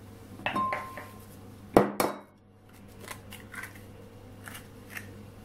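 An egg knocked against the rim of a ceramic bowl to crack it: a sharp knock with a brief ring from the bowl about half a second in, two harder knocks near two seconds, then lighter clicks of shell as it is pulled open over the bowl.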